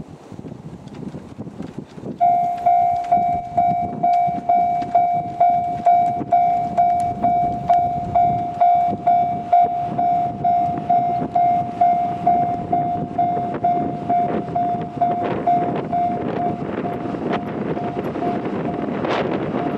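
Railway level-crossing warning bell starts ringing about two seconds in, at about two strokes a second, signalling an approaching train. Under it, the rumble of an approaching KiHa 85 series diesel express grows louder in the second half.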